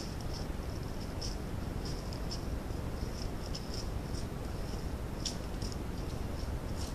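Steady hiss with a thin, high-pitched pulsing chirp and short sharp chirps scattered through, loudest about a second in and again near five seconds.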